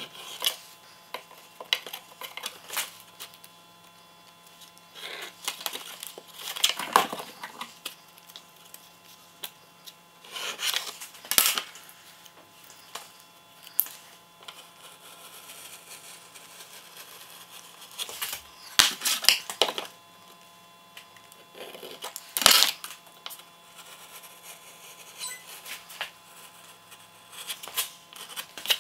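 Small hand tools handled on a plywood board: pencil scratches along a steel ruler, masking tape pressed down and trimmed with a craft knife, and light metallic clinks as tools are moved and set down. The sounds come in short, irregular bursts a few seconds apart, with quiet between.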